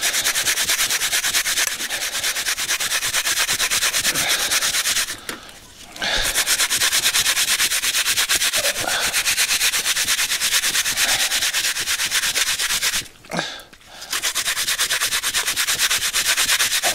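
An apple being grated on a hand-held grater over a steel bowl: fast, even scraping strokes that stop briefly about five seconds in and again about thirteen seconds in.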